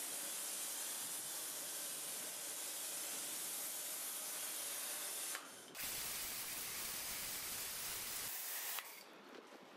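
Kärcher K2 Silent pressure washer's foam nozzle spraying foam cleaner: a steady spray hiss, broken briefly about halfway through, that stops about a second before the end.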